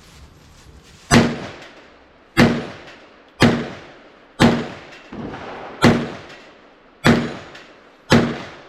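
Kel-Tec PMR-30 pistol firing .22 Magnum rounds: seven single shots at about one a second, each a sharp crack with a short echoing tail.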